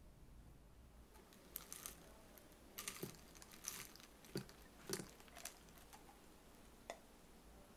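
Faint, scattered clicks and light knocks of a glass and tableware being handled on a table, about eight in all from shortly after the start until near the end.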